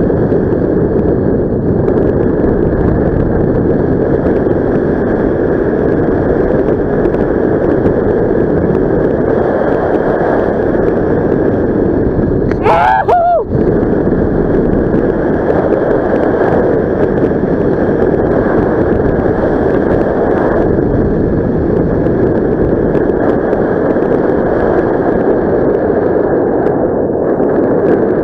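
Airflow buffeting the microphone in paraglider flight: a loud, steady rushing wind noise. About thirteen seconds in, a brief pitched sound rises and falls for about a second.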